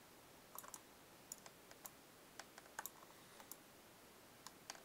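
Near silence broken by a dozen or so faint, irregular clicks from computer input devices: mouse buttons and keys being worked.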